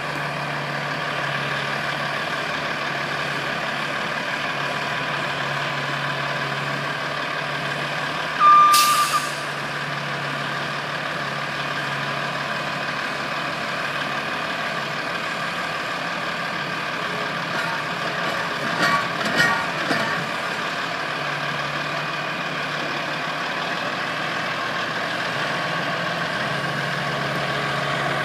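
Diesel engines of a skid-steer loader and a truck running steadily, with a backup alarm beeping. About eight seconds in comes a short, loud hiss of air like an air brake releasing, and a few knocks follow around eighteen to twenty seconds in.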